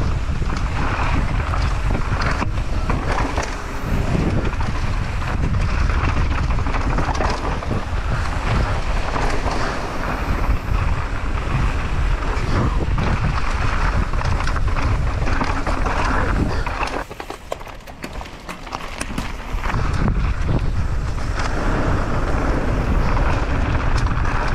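Heavy wind buffeting on the microphone over a low rumble, as from riding a mountain bike downhill at speed; it eases off for a couple of seconds about two thirds of the way through, then picks up again.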